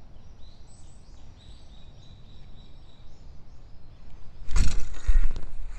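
Faint high chirping of small birds, repeated many times, then a loud rumbling, knocking burst of handling or wind noise lasting about a second, starting about four and a half seconds in.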